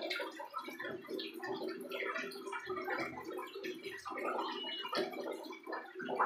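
Young common iora (cipoh) giving rambling subsong: a continuous, jumbled twittering of short chirps and quick slurred whistles, the practice song of a young bird still learning its song.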